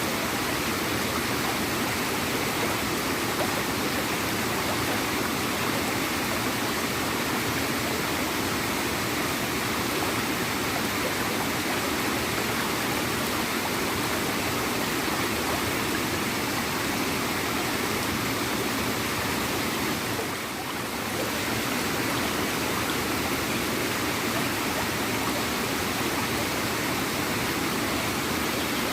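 Small waterfall running steadily, its water gurgling in a continuous, even rush. The level dips briefly about two-thirds of the way through.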